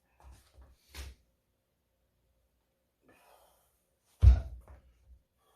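A few soft knocks, then one loud, heavy thud about four seconds in.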